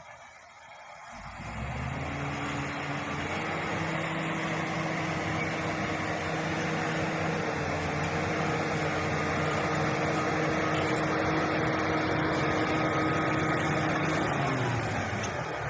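Diesel engine of a Shantui SD16 bulldozer, quiet at first and then rising about a second and a half in. It holds a steady note while working, then drops in pitch near the end.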